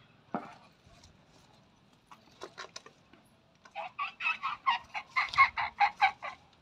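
Animal calls: one sharp downward-sliding note near the start, a few faint short notes, then a loud, fast run of short pitched notes, about six a second, lasting some two and a half seconds.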